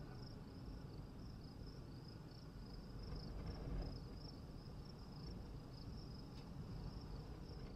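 Faint, steady high-pitched trill of insects, pulsing slightly, over a low rumble.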